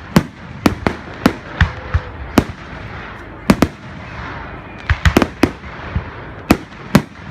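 Fireworks going off: about fifteen sharp bangs in an irregular series, some in quick pairs and clusters, with a hiss between them.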